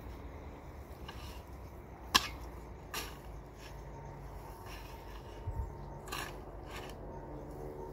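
A hoe blade chopping and scraping into dry grass and hard soil in a few separate strokes, the loudest about two seconds in.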